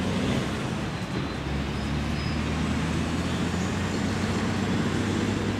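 Steady low rumble of motor traffic, with a low hum running through it.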